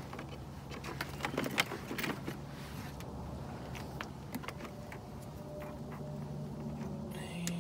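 Tracking collars being handled and fitted into a plastic tackle box: scattered small clicks, knocks and rattles of plastic and collar hardware, over a low steady hum.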